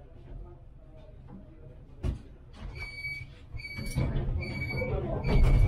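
Tram door-closing warning signal: a series of short, high electronic beeps, about two a second, starting a little after halfway, over the rumble of the tram. A single knock comes about two seconds in.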